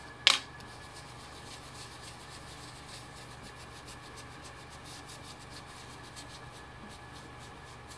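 A single sharp tap just after the start, then faint, quick rubbing strokes of a blending brush dabbing ink through a metal brick stencil onto cardstock.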